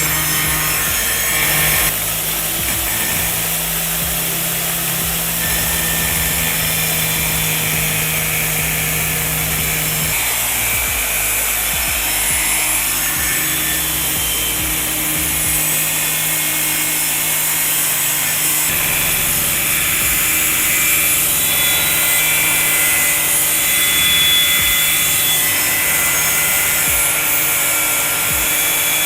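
Angle grinder with a cutting disc running steadily under load, cutting through a thin metal sheet: a constant motor hum beneath a harsh, continuous grinding hiss.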